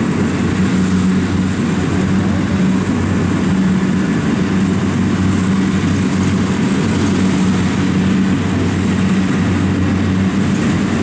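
Kubota combine harvester's diesel engine running steadily as it cuts rice, a continuous low drone with no breaks.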